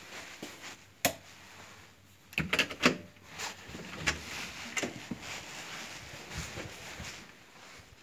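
A door being handled: a sharp latch click about a second in, then a loud clatter of latch and lever-handle clicks and knocks at about two and a half to three seconds, followed by a few softer knocks.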